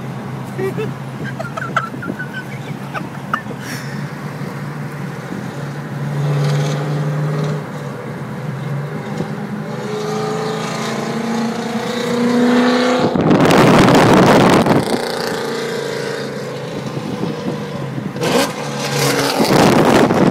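Pontiac GTO's LS2 V8 through a loud custom exhaust, running and then revving up with a rising pitch, followed by two loud rushing bursts, one about 13 seconds in and one near the end, as it pulls hard.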